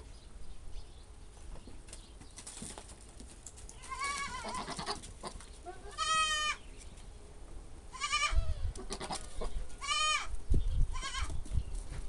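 Goats bleating five times, a second or two apart, in a pen where a doe is in heat. A few low thumps come between the later calls.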